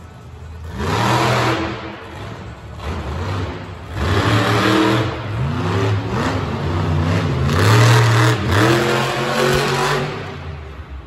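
Monster truck engines revving hard in repeated surges, the pitch climbing and falling with each burst of throttle, loudest about a second in, around four to five seconds in, and near eight seconds in.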